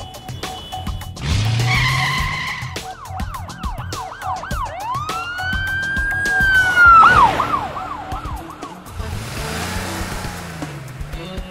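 Police siren sound effect, sweeping up and down in quick yelps, then one long wail about six seconds in, over light background music. There is a short, harsh burst of noise about a second in.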